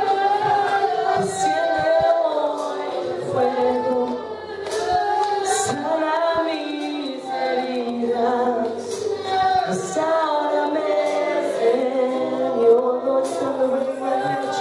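Church congregation singing a worship song together, many voices at once, with a low sustained note underneath.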